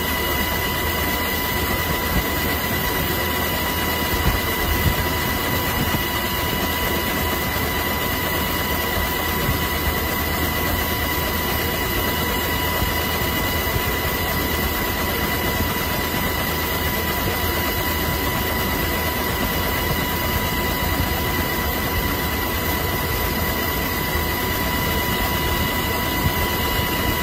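Steady aircraft engine drone and cabin noise with a constant high whine, unchanging throughout; no blast stands out from it.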